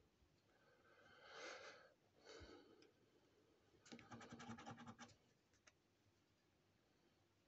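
A coin scratching the latex coating off a scratchcard: three faint bouts of scraping, the last one about four seconds in made of quick back-and-forth strokes.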